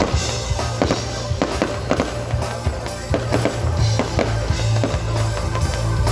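Fireworks going off in a rapid string of bangs and crackles, over loud music with a heavy bass.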